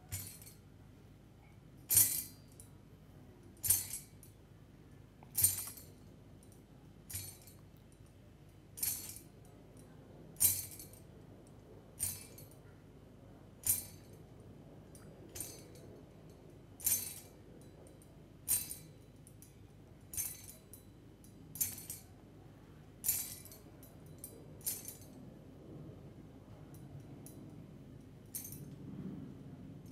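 Tambourine jingles struck in single slow strokes, about one every second and a half to two seconds. Near the end they grow fainter and sparser.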